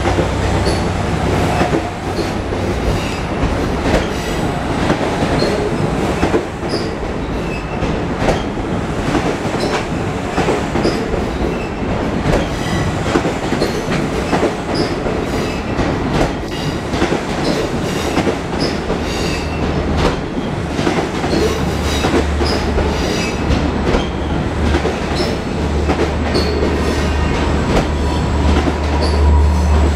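Kawasaki C3 bilevel coaches rolling past at speed, a steady rush of wheels on rail with frequent clacks over rail joints and brief high wheel squeals. A deep rumble builds over the last third as an EMD DM30AC diesel locomotive draws near.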